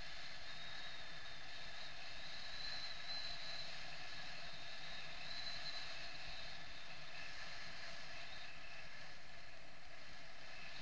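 Steady rush of wind over the camera in paraglider flight, with a thin, slightly wavering high whistle.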